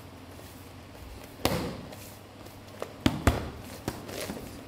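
Punches in MMA gloves slapping onto focus mitts during pad work, with a short echo after each hit. There is a single punch about one and a half seconds in, then a quick combination of several hits near the end.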